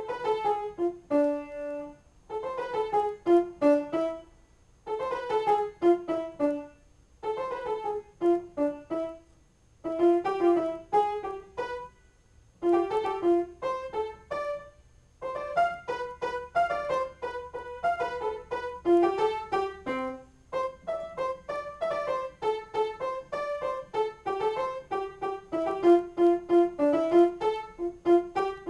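Solo piano improvisation: short phrases of notes broken by brief pauses, then from about halfway a continuous, busier run of playing.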